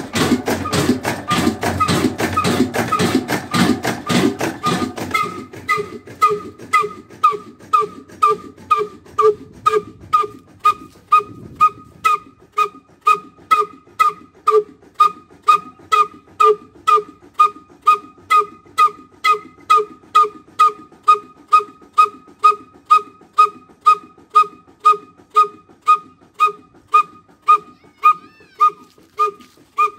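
Old black slow-speed diesel engine ('kala engine') running steadily. For the first few seconds its mechanical clatter is heard close up; then its exhaust beats evenly out of a tall exhaust pipe, about two pops a second, each with a ringing pitched note.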